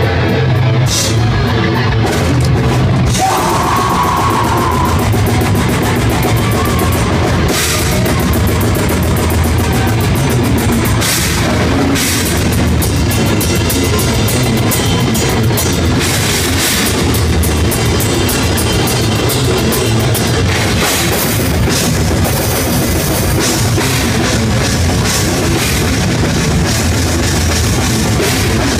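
Death metal band playing loud and live, with a drum kit and electric guitars. From about eight seconds in the drums break into very fast, evenly spaced hits.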